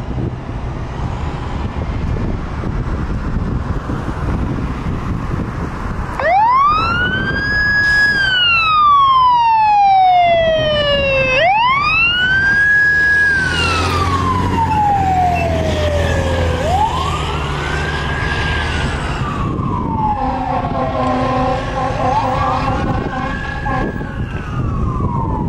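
Fire engine's siren starting about six seconds in and wailing, each cycle rising quickly, holding briefly, then falling slowly over about five seconds, over the truck's engine as it pulls away.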